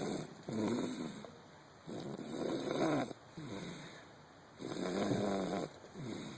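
Heavy snoring: a rattling snore on the breath in and a softer one on the breath out, about three breaths in all.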